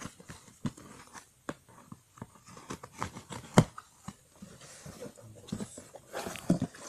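Cardboard shipping carton being opened by hand: irregular scraping, crinkling and tearing as the tape and flaps are worked open, with one sharp snap about three and a half seconds in.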